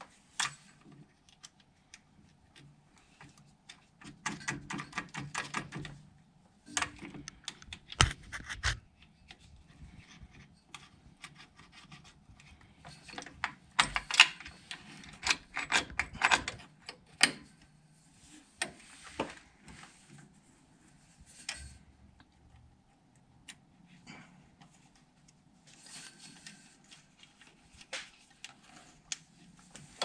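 Light metallic clicks and small rattles of a B&M shifter cable end being handled and fitted to the transmission's shift-lever bracket, coming in irregular clusters.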